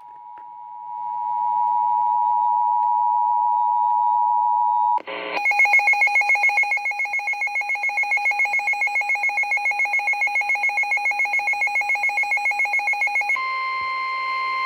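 Emergency alert tones over broadcast radio. A steady two-tone attention signal plays for about five seconds, then a fast, evenly pulsing beep runs until near the end, and then a single steady alert tone takes over, ahead of a severe thunderstorm warning.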